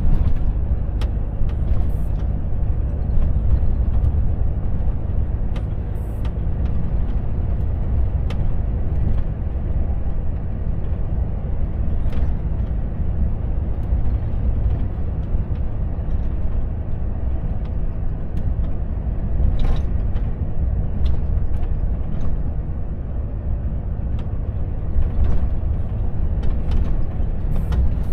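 Volvo FH truck cruising at a steady speed, heard from inside the cab: a steady low engine and road rumble, with scattered light clicks and ticks now and then.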